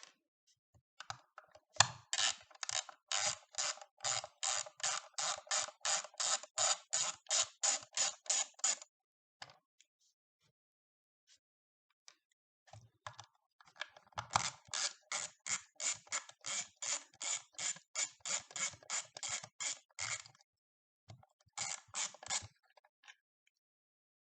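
A ratcheting hand tool clicking steadily, about three to four clicks a second, in two long runs with a pause between and a short third run near the end.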